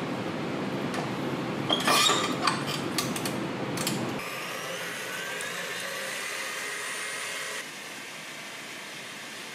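A few metal clicks as a wire whisk is fitted onto a KitchenAid stand mixer, then the mixer's motor runs with a whine that rises in pitch as it speeds up, whipping egg whites and sugar into meringue.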